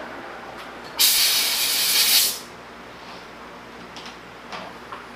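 Victor lathe spinning down after a finishing cut, then about a second in a loud hiss of compressed air, a second and a half long, that cuts off sharply. It is typical of blowing chips off a freshly turned part. A few light metal clicks follow near the end.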